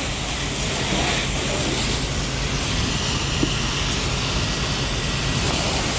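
Steady hiss and rush of a fire hose stream spraying water onto a burning lorry cab.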